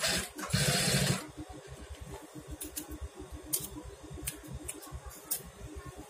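Industrial lockstitch sewing machine stitching a trouser hem in a short run of about a second, then stopping. A low steady background follows, with a few short sharp clicks.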